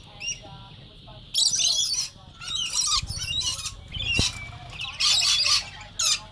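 Scaly-breasted lorikeets screeching in a run of short, harsh bursts, with one sharp knock about four seconds in.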